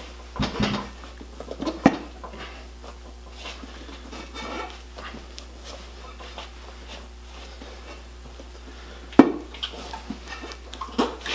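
A new tire being mounted by hand onto a motorcycle wheel rim: scattered clinks and knocks of metal tire spoons against the rim as the bottom bead is worked on, with rubber rubbing between them. The sharpest knock comes about nine seconds in.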